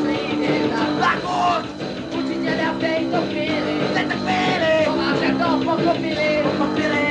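Lo-fi punk rock song recorded on a dictaphone: amateur band playing with singing over guitar chords.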